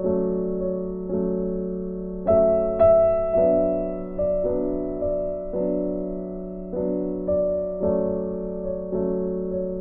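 Background piano music: a slow tune with notes and chords struck about once a second, each left to ring and fade.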